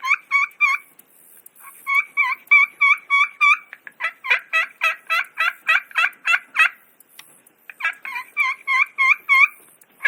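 Friction turkey call worked with a striker, imitating a hen turkey's yelping in several runs of sharp, evenly spaced notes, with a faster run of about a dozen notes in the middle.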